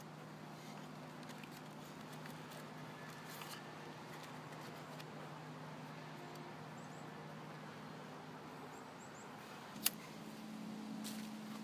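Faint steady low hum, with a single sharp click near the end as a cigarette lighter is struck.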